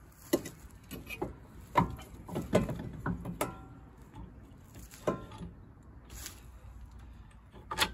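Scattered knocks, clunks and light metal clinks as a rebuilt CV axle is manoeuvred into the front hub and suspension. Two of the clinks, about three and a half and five seconds in, ring briefly.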